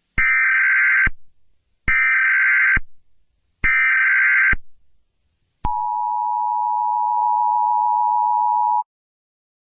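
Emergency Alert System tones: three short warbling SAME header data bursts about a second apart, then the steady two-tone EAS attention signal held for about three seconds.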